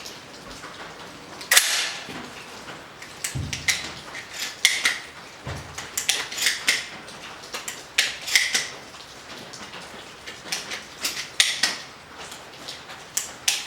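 Benelli M4 12-gauge shotgun being handled: a run of sharp metallic clicks and clacks, with one louder crack about a second and a half in.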